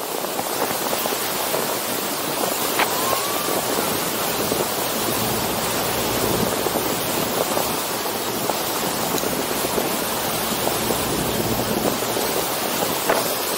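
Steady rushing of churning wake water behind a moving tour boat, mixed with wind on the microphone.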